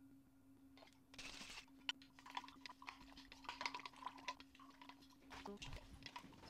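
Electric pottery wheel running with a faint steady hum, under a scatter of light clicks and taps.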